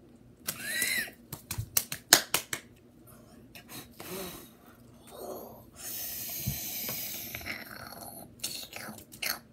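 A girl blowing hard on fingers burned by hot glue, a long breathy hiss, after a short high-pitched vocal squeak and a quick run of sharp clicks and taps from her hands.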